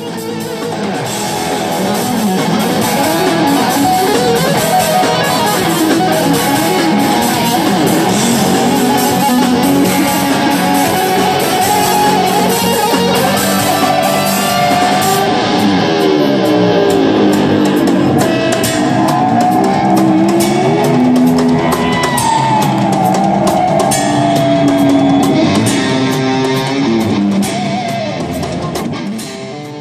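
Live rock band recorded from the audience: a distorted electric guitar plays a lead melody with sliding, bending notes over drum kit and band. It fades in over the first couple of seconds and fades out near the end.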